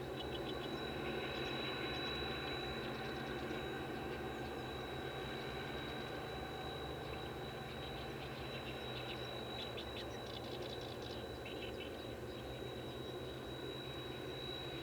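Wild birds chirping in short rapid bursts in the first few seconds and again in the middle, over a steady low hum and a constant thin high-pitched tone.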